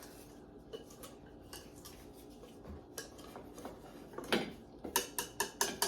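A spatula scraping cake batter out of a mixing bowl into a cake pan: quiet scraping with a few scattered clinks, then a quick run of sharp clinks and knocks of the utensil against the bowl near the end.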